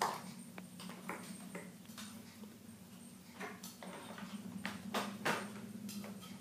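Scattered light clicks and taps of plastic toy pieces being handled on a table, a few in quick succession about five seconds in, over a steady low hum.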